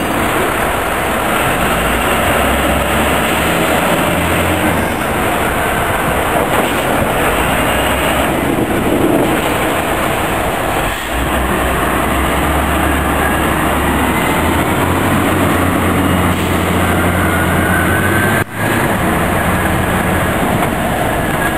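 Locomotive shop turntable bridge turning: a steady rumble and grinding of its wheels on the pit rail, with faint squeals near the end, over a low drone of idling diesel locomotives.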